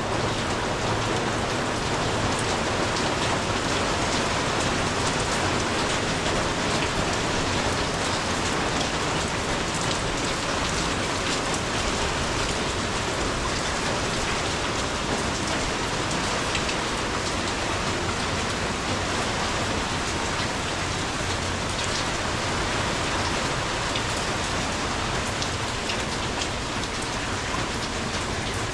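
Rain falling steadily, drops pattering on the ground in an even hiss with many small ticks.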